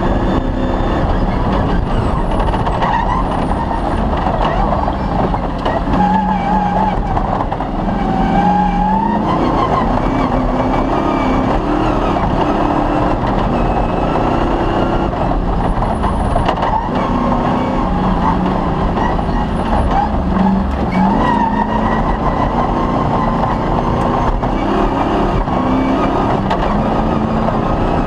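Off-road rally car's engine running hard at speed, its revs rising and falling over and over through gear changes, over a constant rumble from the car driving over a rough, broken-up track.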